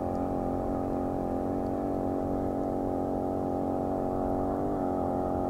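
An engine running steadily at one pitch, a low hum with many overtones.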